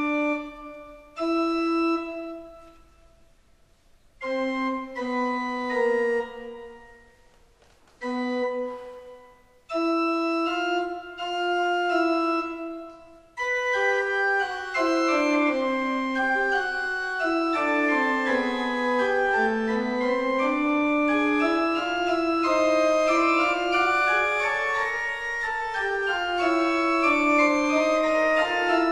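Trombone and organ music: short separated phrases that die away with a reverberant tail, then from about halfway several melodic lines weaving together continuously.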